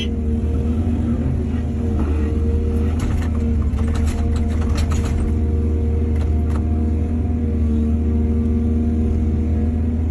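Excavator's diesel engine running steadily with a low, droning hum. A cluster of clanks and rattles comes a few seconds in, and a shorter one follows a little later.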